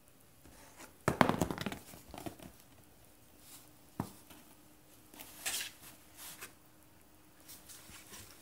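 Bengal cat batting at toys inside a cardboard box: a burst of scratching and rustling against the cardboard about a second in, a single sharp knock at four seconds, then a brief high scrape and lighter scuffles.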